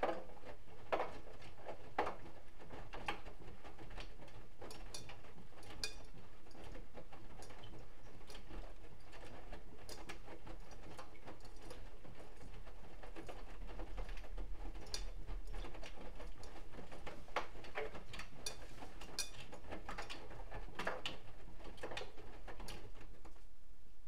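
Bosch Exclusiv Maxx Comfort WFR160A front-loading washing machine tumbling a wet colour wash: irregular clicks and light knocks from the turning drum and load over a low hum that swells about midway through.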